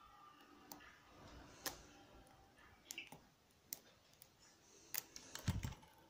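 Lock pick clicking in the keyway of a small brass Squire padlock: a handful of light, sharp clicks about a second apart. Near the end comes a quick cluster of clicks with one dull knock.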